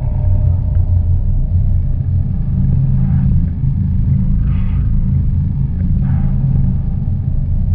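Dark ambient drone score: a loud, deep rumbling drone whose low tones shift slowly between two pitches, with faint hissing swells above it a few times.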